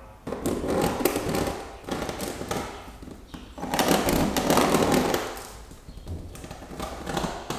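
Pen scratching on drywall as it traces around a round in-wall speaker template to mark the cutout circle, in three rasping strokes, the longest about halfway through.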